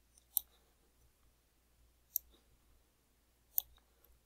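Three sharp computer mouse clicks, a second or two apart, over quiet room tone.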